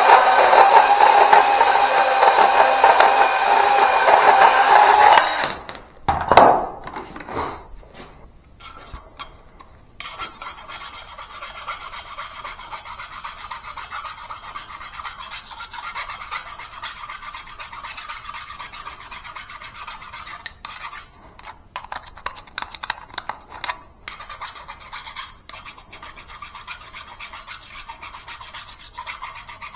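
Cordless portable band saw cutting through steel gas pipe, running steadily for about five seconds and then stopping, with a sharp knock just after. From about ten seconds in, a steady rasping scrape as the freshly cut pipe end is deburred by hand.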